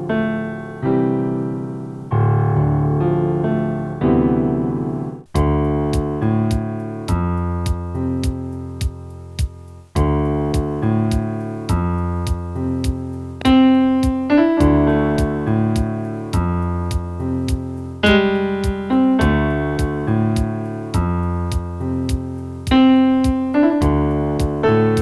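Keyboard instrumental with a piano sound playing sustained chords that change every second or two. About five seconds in, a steady ticking beat of about two clicks a second joins it.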